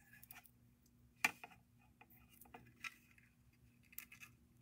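Faint, scattered clicks of faceted rondelle beads knocking against one another and the beading needle as beads are picked up and threaded on a bead loom, with one sharper click about a second in.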